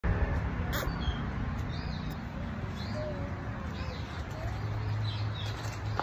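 Faint, short bird chirps about once a second over steady background noise with a low hum.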